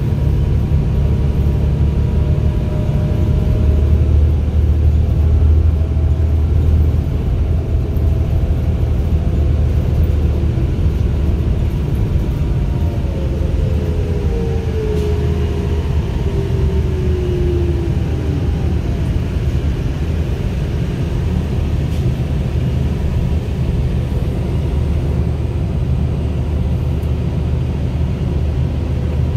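Cabin of a 2010 New Flyer D35LFR diesel city bus under way: a steady low engine drone with road noise. About halfway through, a whine slides down in pitch over several seconds.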